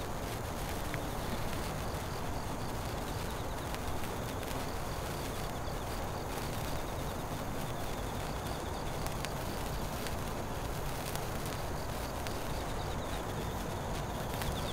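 Steady outdoor background hiss with faint insect chirping in short, high-pitched runs that come and go.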